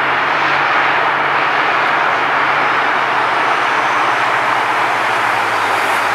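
KiwiRail DFB-class diesel-electric locomotive running with a low steady engine hum as it hauls passenger carriages slowly along the track, under a steady rushing background noise.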